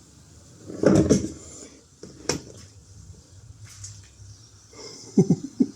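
Hand rivet nut gun being worked to set a threaded rivet nut: a loud rasping crunch about a second in, then one sharp click a little over a second later, followed by lighter knocks of the tool being handled.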